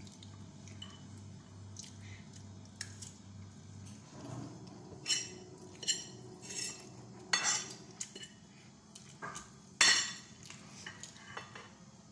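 Metal fork and spoon clinking and scraping against a ceramic plate as instant noodles are twirled and picked up: a run of short, irregular clinks, busier in the second half, the loudest a little before the end.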